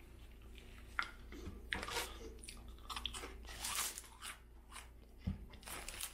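Close-miked chewing of a mouthful of Burger King Whopper, with scattered wet mouth clicks and small crunches. A soft, low thump comes about five seconds in.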